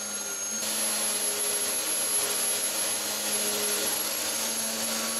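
Electric orbital sander with a dust-extraction hose running with a steady motor hum and high whine, turning louder and hissier about half a second in as the pad works the edges of the film-faced plywood workbench to round them over.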